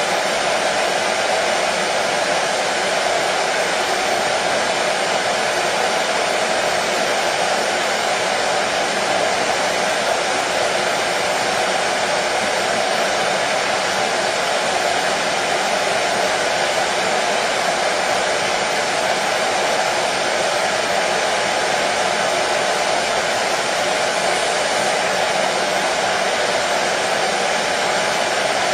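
Hair dryer running steadily, a constant even whoosh of blown air and motor with a faint steady hum in it, unchanging throughout.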